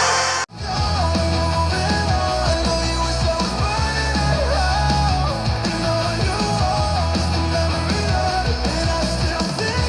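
Music sample played on a JBL Charge 6 Bluetooth speaker: one track cuts off about half a second in and a rock track with guitar, steady bass and a lead melody starts.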